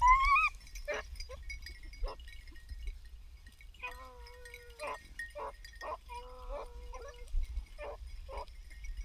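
Beagles giving tongue while hunting rabbit: short yips scattered through, with a few longer wavering bawls, one rising right at the start and others about four and six seconds in. This is the dogs opening on a rabbit's scent.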